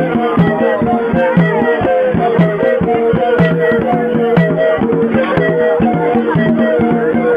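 Live traditional music of a Cameroonian Manjong dance group: drums and rattles beating a steady rhythm, with the strongest strokes about once a second, under a short melodic phrase that repeats.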